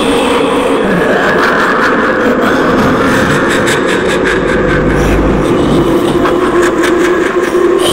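Dense horror sound-effect ambience: a steady droning noise bed with faint held tones, a low rumble that swells up around the middle, and a run of crackles and clicks through most of it.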